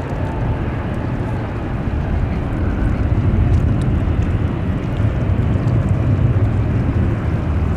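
Boeing 747-400 Freighter's four jet engines at takeoff thrust as it climbs away: a loud, steady, deep rumble that swells slightly a few seconds in.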